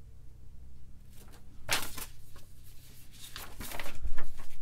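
Parts packaging being handled at a workbench: short crinkly rustles, once about two seconds in and again as a cluster later, with a dull low thump near the end.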